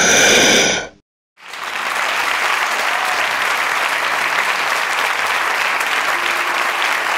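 A loud sustained sound breaks off about a second in, and after a short silence a theatre audience applauds steadily.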